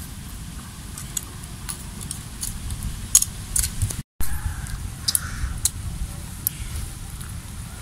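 Scattered small sharp clicks and ticks over a steady low rumble, with a brief dropout about four seconds in.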